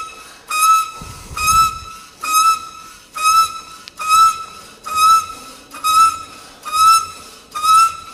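A hydraulic floor jack squeaking with every pump stroke of its handle as it lifts the car: a loud, high squeak about once a second, about ten in a row.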